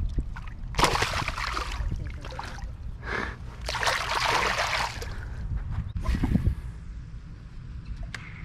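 Splashing in shallow water as a hand-held tarpon is released and kicks away. It comes in two bursts about a second long, the first about a second in and the second about three and a half seconds in.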